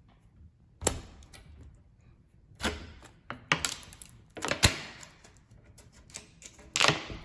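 Heat-softened thermofoil vinyl film being pulled off a cabinet door: several short crackling, tearing bursts mixed with sharp clicks and knocks from handling the door.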